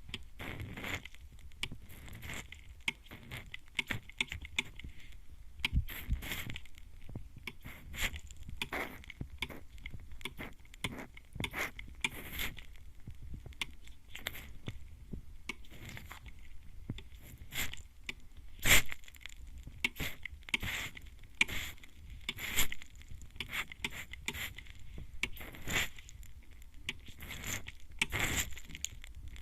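Mist spray bottle (atomizer) spritzing at close range onto the ear, for binaural listening: dozens of short hissing sprays at irregular intervals, one much louder a little past the middle.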